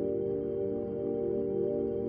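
Ambient background music of sustained, layered tones.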